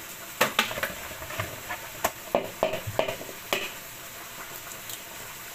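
A run of sharp clicks and taps from handling and cracking hen's eggs against a glass mixing bowl, over a steady sizzle of bacon bits frying in a pan.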